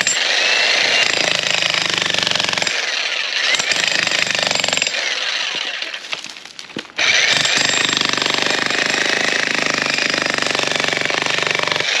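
VEVOR 110-volt electric demolition hammer pounding its bit into hard rock with rapid, steady blows. It stops briefly about six seconds in, then starts hammering again.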